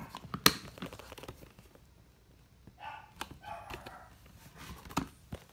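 A cat meowing twice, short calls about three seconds in, with sharp clicks and knocks of a plastic pet carrier being handled; the loudest knock comes about half a second in.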